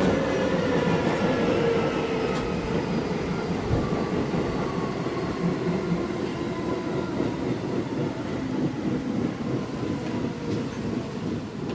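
Running noise heard inside a Keisei 3400 series electric train car as it slows into a station: a rumble of wheels on rail, with the traction motor and gear whine falling slowly in pitch.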